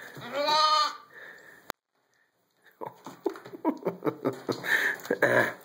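A young lamb bleats once, a wavering call under a second long. The audio then drops out for about a second, followed by rustling and light tapping as the lambs shift about in a plastic pet carrier.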